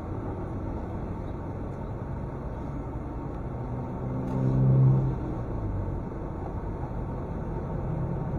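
Steady low rumble of idling and passing road traffic as heard by a dash camera. About four seconds in, a nearby engine's drone grows louder and fades a second later as a vehicle crosses close by.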